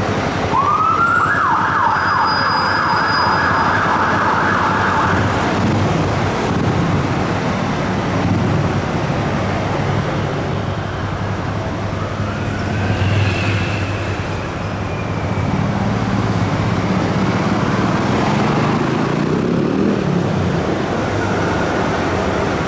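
Fire engine siren winding up and then switching to a fast up-and-down yelp for about five seconds, over heavy city traffic and diesel engine rumble. After it stops, only traffic and engine noise continue.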